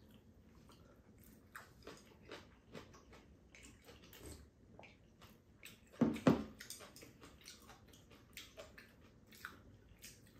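Close mouth sounds of people eating spaghetti: chewing, slurping and wet lip smacks, with chopstick clicks and a louder slurping burst about six seconds in.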